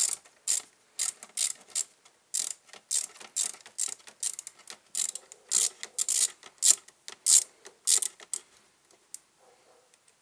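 Hand ratchet clicking in repeated short strokes, about two to three a second, as a fastener on the car's coolant filter hose is worked loose. The strokes stop about nine seconds in.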